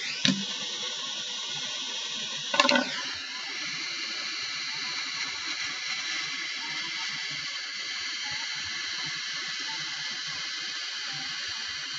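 Handheld butane torch flame hissing steadily as it heats Kanthal resistance wire red hot to anneal it, with two brief louder bursts in the first three seconds.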